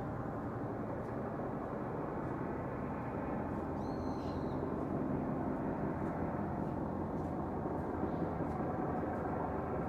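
Steady low traffic rumble, with a single short, high bird call about four seconds in.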